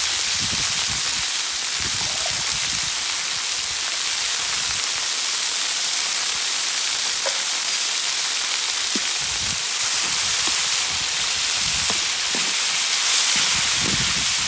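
Meat and chorizo sizzling in a paella pan over a wood fire: a steady frying hiss, with a few faint low knocks.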